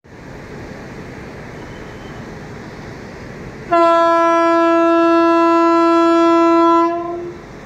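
Indian Railways electric locomotive sounding its horn as the train prepares to depart: one long, steady blast of about three seconds, starting about four seconds in, over a steady background hiss.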